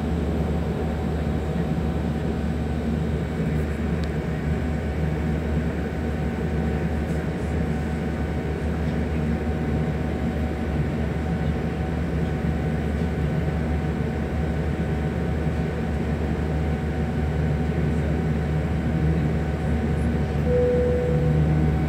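Steady cabin noise of a jet airliner taxiing, its engines running at low thrust with a constant low hum and a faint steady whine. About twenty seconds in, a short single tone sounds briefly.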